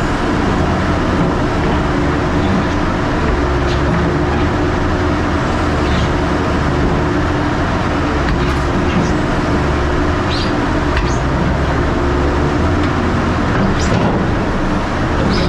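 Heavy machinery running steadily with a low engine hum, with a few short clicks and clanks through it.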